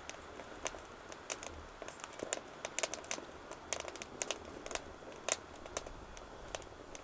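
Wood fire crackling inside a BioLite Basecamp biomass stove: irregular sharp snaps and pops, several a second at times.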